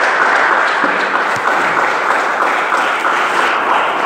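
Church congregation clapping steadily in a round of applause.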